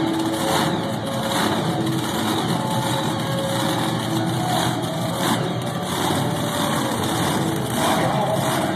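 Monster truck engines idling, a steady mechanical drone.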